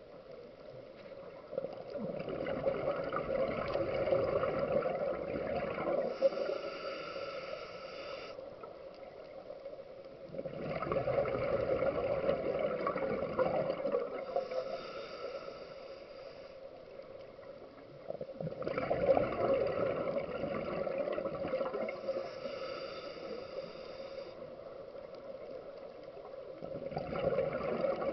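Scuba diver breathing through a regulator, heard through an underwater camera housing: long gurgling rushes of exhaled bubbles come roughly every eight seconds, with quieter pauses between breaths.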